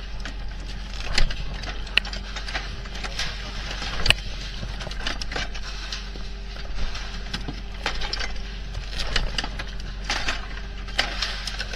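Steel linkages and springs of a fish-handling machine on a fishing boat's deck clattering, with irregular sharp metallic clicks, over a steady engine drone.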